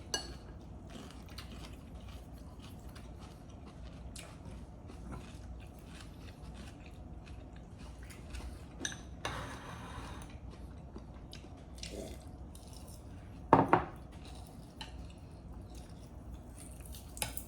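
Eating at a table: utensils and dishes clicking and clinking now and then, with a short rustle partway through and one louder knock of something set down on the table about two-thirds of the way in.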